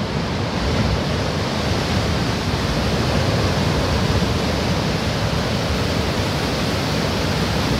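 Heavy storm surf breaking over a rocky shore: a steady roar of churning white water.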